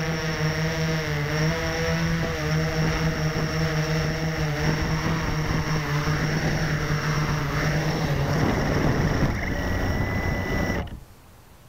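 Blade 350 QX quadcopter's four brushless motors and propellers humming, heard from a camera mounted on the airframe, the pitch wobbling as the quad hovers and settles onto the ground. The steady hum breaks up about eight seconds in, and the motors cut off suddenly near the end as it lands.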